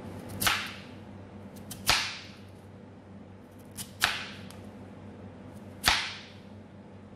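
Knife cutting through raw sweet potato and hitting the cutting board: four separate cuts, each a sharp chop that fades within a fraction of a second, over a faint steady hum.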